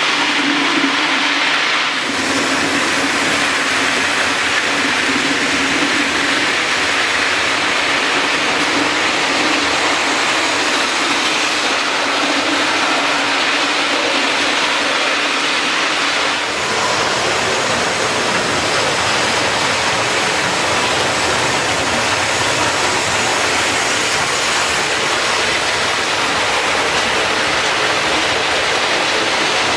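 An OO gauge model train, a Bachmann Class 46 locomotive hauling model parcels vans, running along the track: a steady rolling rush of wheels on rail with a low motor hum. The sound changes abruptly about two seconds in and again about halfway through.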